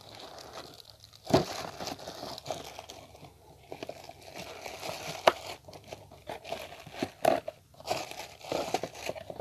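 Cardboard packaging crinkling and rustling as a spinning reel is worked back into its box, with several sharp knocks along the way.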